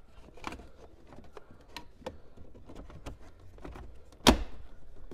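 Plastic dash trim panels on a Toyota RAV4 being pressed into place by hand: light clicks and handling rattles, then one loud snap about four seconds in as a panel clip pops home.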